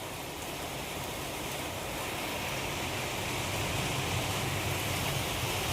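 Steady rain falling on the garden and plants, an even hiss that grows slightly louder.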